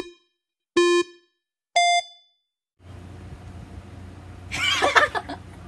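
Film-leader countdown beeps: a low beep, a second low beep about a second later, then a single higher-pitched beep. After these comes a steady low room hum and a brief burst of voice near the end.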